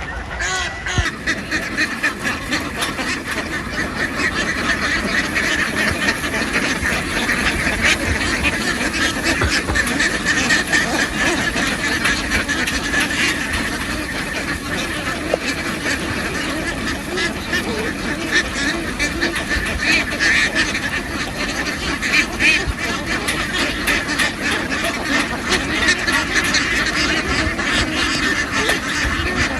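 A large flock of domestic ducks quacking all at once, many overlapping calls forming a steady din.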